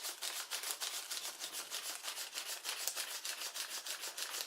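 Paper origami flapping bird's wings being flapped, a fast, even rustling of paper at about eight strokes a second.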